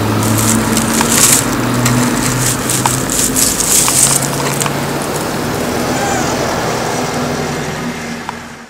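Dry pine needles and twigs crackling and rustling under a cat rolling on them right at the microphone, densest in the first half. A steady low hum runs underneath.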